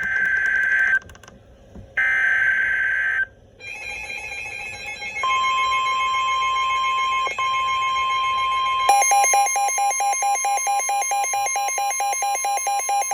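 NOAA Weather Radio alert tones: two short bursts of buzzy SAME digital header data, then the steady 1050 Hz warning alarm tone from about five seconds in. About nine seconds in, a fast, even pulsing beep joins the tone.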